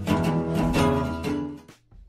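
Intro theme music with plucked string notes in a steady rhythm, dying away shortly before the end.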